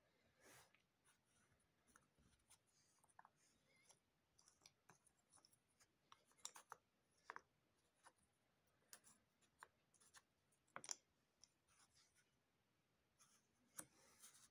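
Faint, irregular clicks and light scrapes of cardboard jigsaw puzzle pieces being picked up, slid and set down on a mat, growing busier about halfway through.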